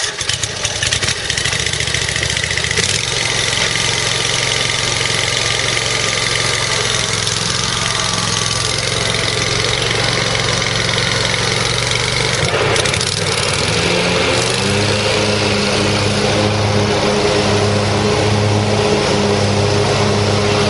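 John Deere 667A Stander mower's 23-horsepower Kawasaki V-twin engine running just after starting. About thirteen seconds in its speed picks up and settles at a higher, steady pitch.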